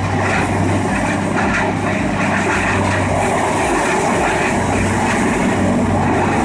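Heavy land-clearing machinery running steadily: an even, loud engine noise over a constant low hum.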